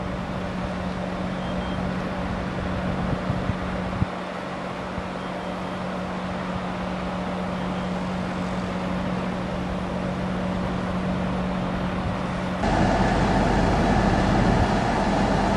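Steady motor-vehicle running noise with a constant low hum. About thirteen seconds in it switches abruptly to a louder, rougher noise.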